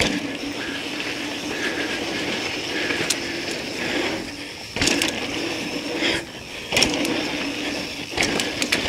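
Mountain bike rolling fast down a dirt trail: steady tyre noise on the dirt with rattling, and several sharp knocks from bumps in the second half.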